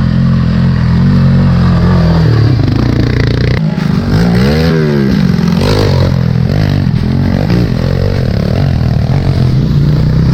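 Small dirt bike engine running under throttle. It revs up and back down in one quick rise and fall about four seconds in, followed by several smaller throttle swells.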